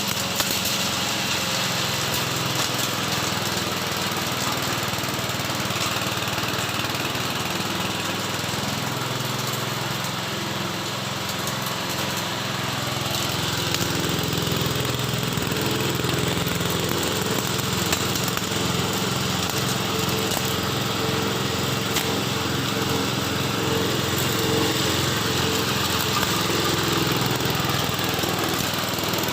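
Forage chopper for livestock feed running steadily, driven by a small engine.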